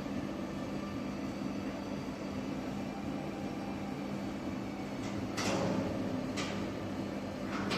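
Steady electrical hum of a welding setup, broken by short hissing crackles about five, six and a half, and seven and a half seconds in, like brief welds or tacks on a steel chassis frame.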